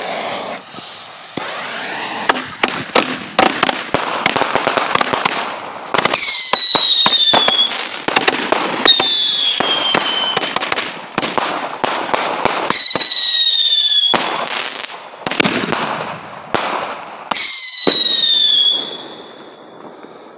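Dominator Mighty Minis consumer firework cakes firing: a lit fuse hissing at the start, then rapid shots and crackling, broken by four whistles that each slide down in pitch for about a second and a half.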